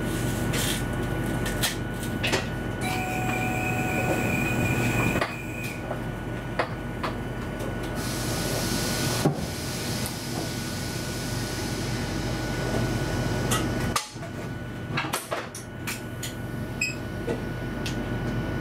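Inside a train driver's cab: steady electrical hum and a thin high whine, with scattered clicks and knocks. A high steady tone sounds for about three seconds near the start.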